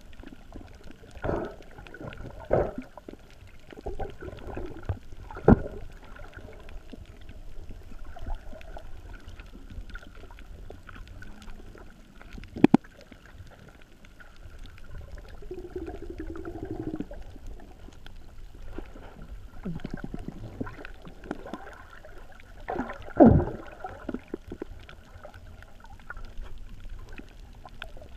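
Muffled underwater sound of a snorkeler moving through the water, with a few sharp knocks and thumps, the loudest about five seconds in and again near twenty-three seconds.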